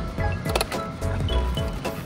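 Upbeat background music with a steady, bouncy beat and short bright notes, with a brief noisy swish about half a second in.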